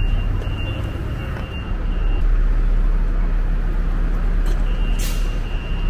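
City bus running at the stop with a steady low rumble and a thin high whine that drops in and out. There is a brief hiss about five seconds in.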